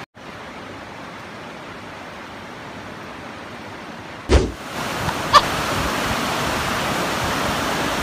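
Steady rushing noise of a waterfall. A single thump comes about four seconds in, and after it the rush is louder.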